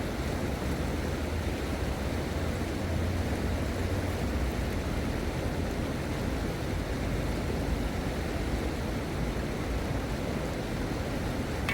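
Steady rushing noise of a river flowing, an even wash of sound with a deep low rumble and no separate events.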